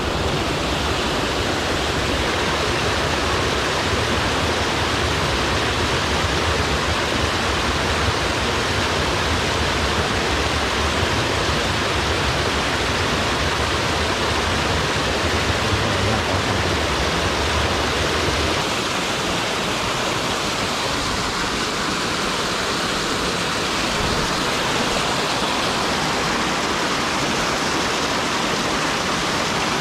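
Mountain stream pouring over small cascades and waterfalls between boulders: a loud, steady rush of water. A deeper rumble under it drops away about two-thirds of the way through.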